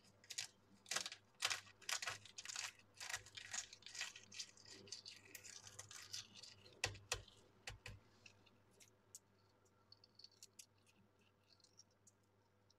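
Hard-boiled egg's shell crackling in quick clicks as it is pressed against a stone countertop under the fingers and peeled by hand, thinning out to a few small ticks of shell coming away in the last few seconds.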